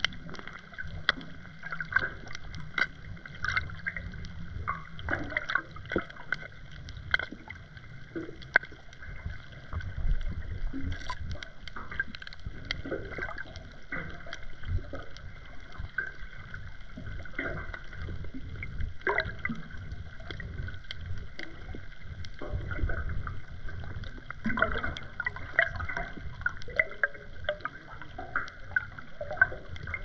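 Underwater sound heard through a GoPro's waterproof housing: a low rumble of moving water with frequent irregular clicks and crackles.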